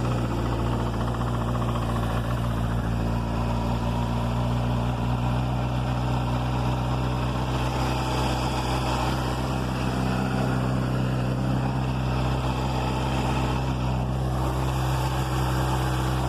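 2007 Honda CBR600RR inline-four engine idling steadily just after being started. The bike has an engine noise that the workshop traced to the cam chain tensioner.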